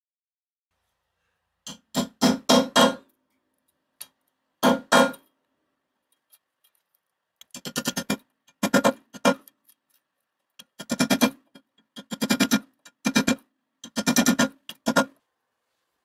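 A hammer tapping a metal punch to crimp the rim of a wire-mesh strainer basket on a steel bench. The taps come in short bursts of several quick, ringing metal strikes, with pauses between.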